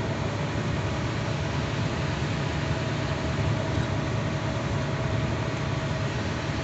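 Steady drone of a truck's engine and tyre noise heard inside the cab while cruising at highway speed, with a faint steady whine underneath.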